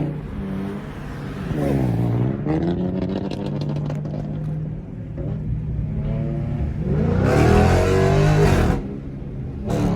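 Muscle car engines revving as cars drive past: the engine note dips and climbs about two seconds in, then a loud, rising rev with rough exhaust noise runs from about seven to nearly nine seconds.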